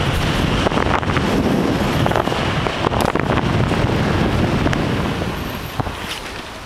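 Wind buffeting a helmet camera's microphone as the rider moves along, a steady low rumbling rush with a few light knocks, easing off near the end as the rider slows into a turn.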